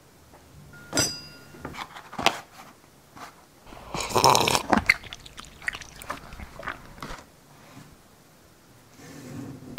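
Clear plastic food tray crackling and crunching close to the microphone as it is bitten and chewed: sharp snaps about one and two seconds in, a dense crunching burst about four seconds in, then scattered smaller clicks.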